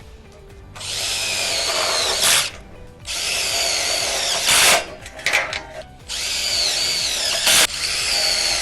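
Power drill driving screws into the steel C-section framing of a shed: three runs of a couple of seconds each. The motor whine wavers in pitch during each run, and each run ends in a brief louder burst as the screw seats.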